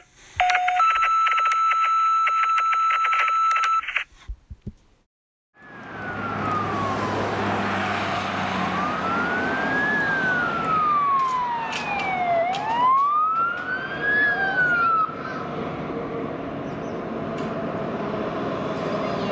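A fire engine's siren wails in slow rising and falling sweeps, then cuts off, leaving the truck's engine and tyre noise as it comes on. It is preceded by a few seconds of a steady-toned intro sound and a brief silence.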